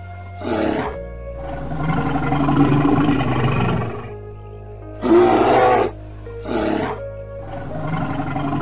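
Bear roaring and growling in a repeating sequence: a short roar about half a second in, a longer, lower growl, then a loud roar about five seconds in, a short one, and another long growl near the end. It plays over steady low background music.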